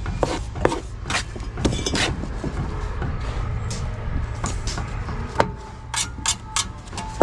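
Steel brick trowel scraping and scooping mortar off a mortar board and spreading it along the top of a brick wall, with repeated sharp clicks and knocks of the trowel and bricks over a steady low rumble.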